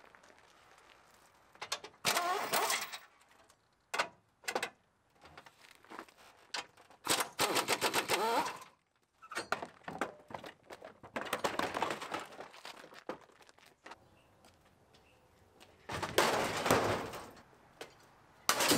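Cordless power tool running bolts off a pickup's front bumper brackets in several rapid hammering bursts of one to two seconds each, with sharp metal knocks in between as the bumper is worked loose.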